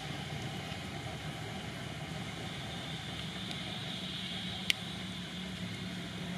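Steady outdoor background with a low hum and a high, hiss-like drone over it, and one sharp click about three-quarters of the way through.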